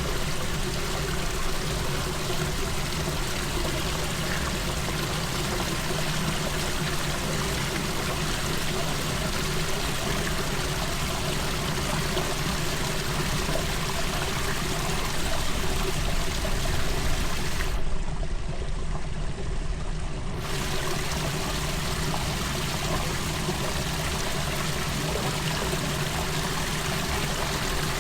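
Floodwater pouring and rushing steadily, as water drains off a flooded road. For about two seconds, some two-thirds of the way in, the high hiss drops out.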